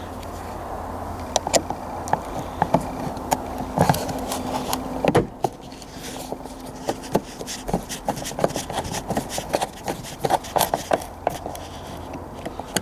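Irregular sharp clicks and knocks of hands and a tool on the car door's interior trim panel, as the panel and its screw are fitted back in place.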